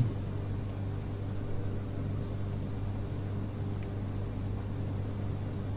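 Steady low electrical hum from the energized relays and contactors of a cold-room controller wiring board.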